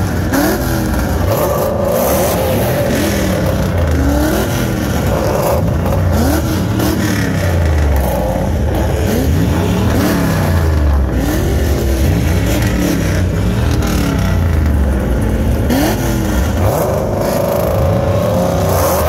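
A car engine being revved over and over, each rev rising and falling in pitch, about one rev every second and a half.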